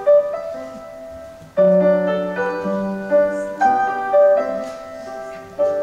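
Piano playing slow, sustained chords and melody notes, the introduction to a song.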